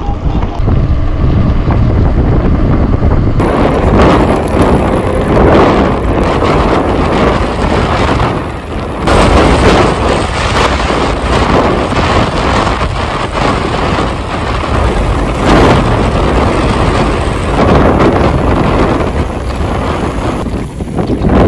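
Heavy wind buffeting on the microphone while riding a bicycle downhill: a loud, gusting rumble with no steady tone, swelling about three seconds in.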